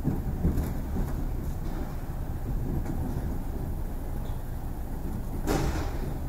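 Ride noise inside a moving ED4M electric train car: a steady low rumble of wheels and running gear on the rails, with a few light clicks and one louder clack about five and a half seconds in as the wheels run over the track.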